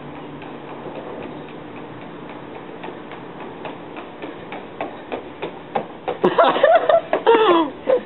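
Footsteps of hard-soled shoes on a concrete walkway, a steady run of sharp clicks that grows louder as the walker approaches. About six seconds in, a loud voice-like sound with gliding pitch cuts in for about a second and a half.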